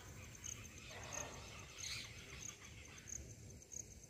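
Faint outdoor ambience: an insect chirping, a short high pulse repeated at an even pace, over a steady low background noise.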